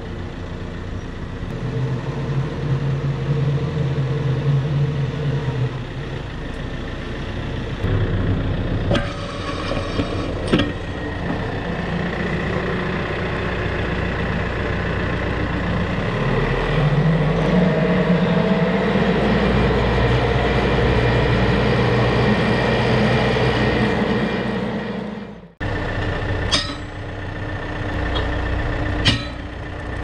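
Compact tractor engine running as the tractor moves up to a set of pallet forks, its pitch rising for a while in the middle. A few sharp metal clunks come as the front loader's quick-attach picks up the fork frame.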